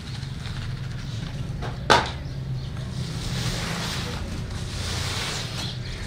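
Soft rustling of a block-printed cotton ajrak sheet being handled and lifted, over a steady low hum, with one sharp knock about two seconds in.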